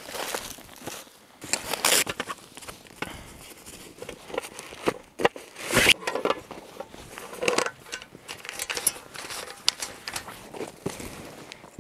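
Irregular crunching and crackling with sharp snaps, loudest about six seconds in: a person moving about on dry forest litter.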